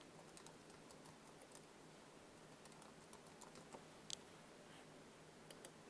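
Faint typing on a computer keyboard: light, irregular key clicks, with one louder click about four seconds in.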